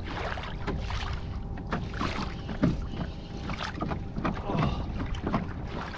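Water slapping and lapping against a kayak hull in irregular knocks and splashes, over a steady low wind rumble on the microphone.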